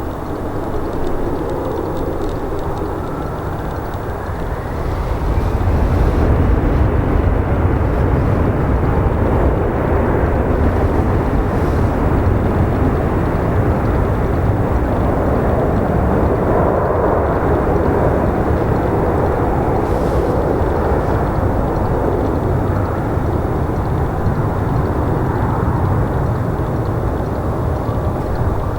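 Embraer E175 regional jet's two CF34 turbofan engines running at high power, a steady rumble that swells about five seconds in and holds, with a faint rising whine early on.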